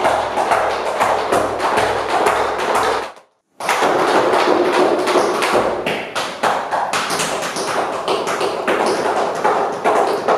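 Tap shoes striking the floor in rapid, dense rhythms over backing music with a steady beat. About three seconds in, everything cuts off for half a second, then the tapping carries on without the beat.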